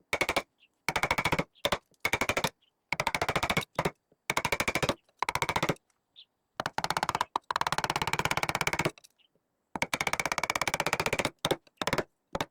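A power woodworking tool running in short bursts, each a fast, rattling train of pulses lasting from a fraction of a second to about two seconds, with abrupt starts and stops between them.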